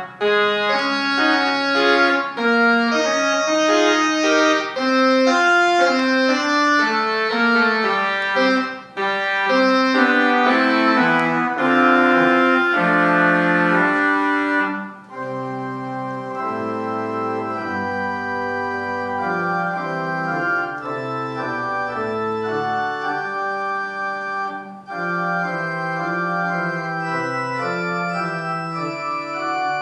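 Organ playing slow music in held chords, with short breaks between phrases. From about halfway it plays quieter and less bright.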